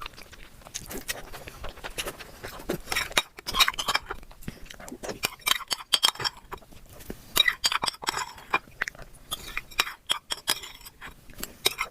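Close-miked eating: chewing with many irregular sharp clicks, and cutlery clinking against a dish now and then.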